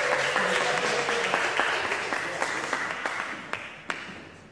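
Applause from a small group of people, fading out, with a last couple of separate claps near the end.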